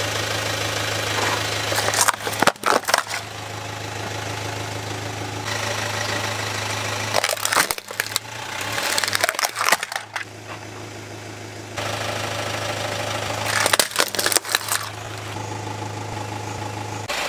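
A car idling with a steady low hum as its tyre rolls over hard plastic toy vehicles and crushes them: three bouts of sharp cracking and crunching plastic.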